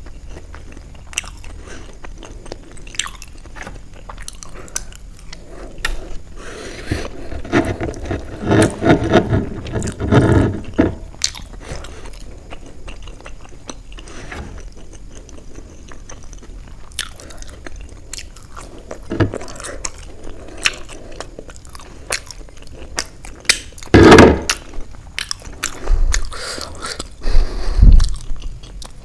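Close-miked chewing and biting of steamed paneer momos dipped in spicy chutney, with wet mouth sounds. It grows louder about a third of the way in and again with a sharp burst after about 24 s, and a few low thumps come near the end.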